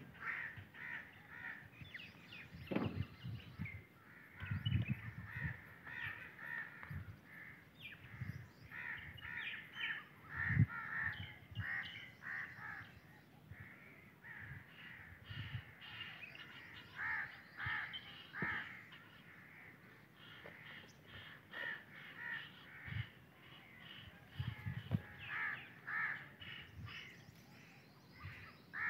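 Birds calling outdoors, harsh calls repeating again and again throughout, with occasional low thumps.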